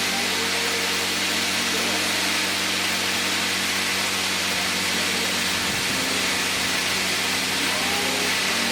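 Plasma cutter with a built-in air compressor running: a steady, even hiss over a constant low hum.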